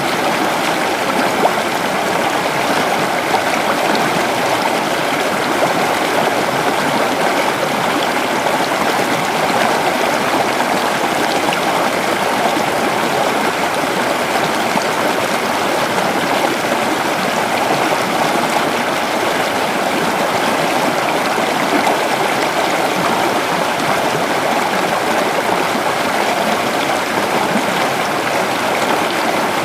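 Creek water running over stones, a steady rushing and babbling with no breaks.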